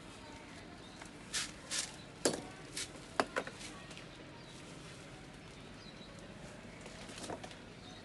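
A few short scuffs and sharp clicks on a concrete floor, bunched between about one and a half and three and a half seconds in, with one more near the end, over faint outdoor background noise.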